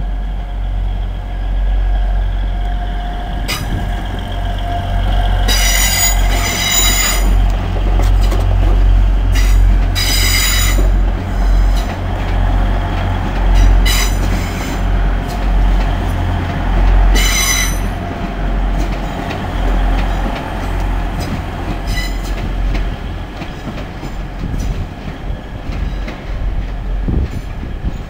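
Class 180 Adelante diesel multiple unit departing, its underfloor diesel engines giving a steady low rumble as it passes. The wheels squeal several times in short high bursts as they run through the curves and points.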